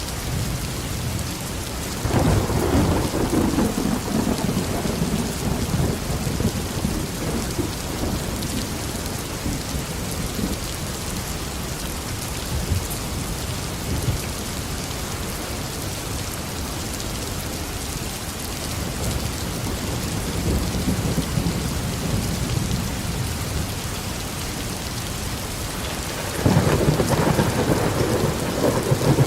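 Heavy tropical rain falling steadily, with thunder: a loud rolling clap about two seconds in that rumbles away over several seconds, a softer distant rumble later, and another sharp clap near the end.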